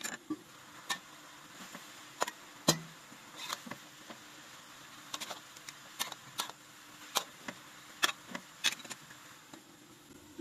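Scattered light clicks and knocks, irregular and about one a second, over a faint steady hiss.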